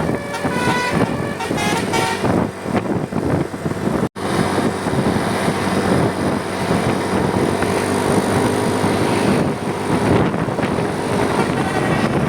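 A tour bus's telolet musical air horn plays a tune of several stepped notes over engine and road noise. About four seconds in there is an abrupt cut, and after it only steady road and engine noise is left.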